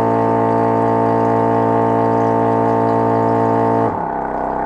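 The liquid filling machine's pump motor running at full power with a loud, steady hum as it fills a 1-litre bottle; about four seconds in the hum drops slightly and changes as the timed fill nears its end.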